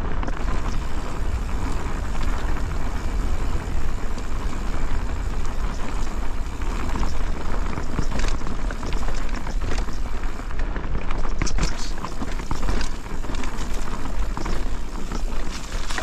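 Specialized Kenevo e-mountain bike rolling fast down a dirt forest trail: a steady rush of tyres on dirt and leaves with low wind rumble on the microphone, and a few sharper clacks from the bike rattling over bumps.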